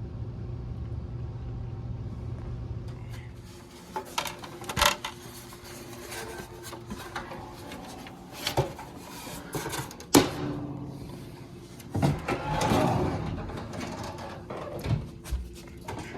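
Scattered knocks and clunks of objects being handled, over a low steady hum that stops about three and a half seconds in.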